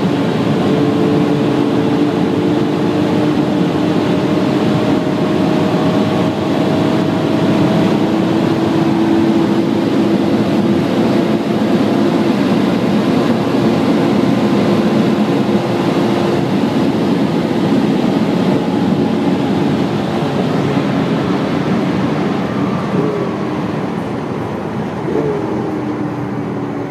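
Lamborghini Aventador LP700-4's V12 engine pulling at high motorway speed, heard from inside the cabin under heavy wind and tyre noise; its note climbs slowly. Over the last several seconds the sound eases and gets quieter, with two short jumps in pitch near the end.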